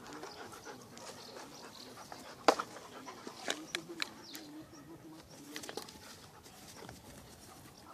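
A Rottweiler and another dog play-fighting: panting and scuffling, with a few short sharp sounds, the loudest about two and a half seconds in.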